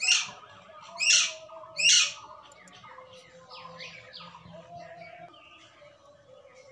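A bird calling: three loud, short, high calls about a second apart, each sliding down in pitch, then several fainter calls of the same kind.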